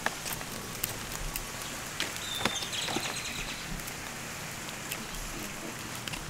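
Outdoor ambience while walking: a steady hiss with scattered light clicks and taps, and a brief high chirp about two and a half seconds in.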